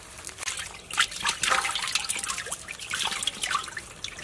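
Freshly caught small fish flapping on a wet plastic sheet: an irregular run of quick wet slaps and patters.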